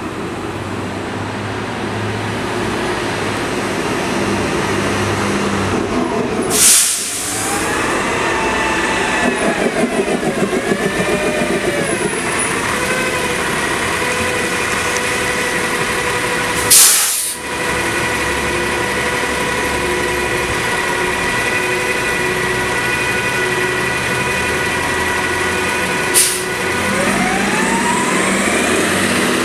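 City transit bus standing at a stop with its engine running in a steady whine, broken by three short, loud hisses of compressed air from its air system about ten seconds apart. Near the end a rising whine sets in as the bus starts to pull away.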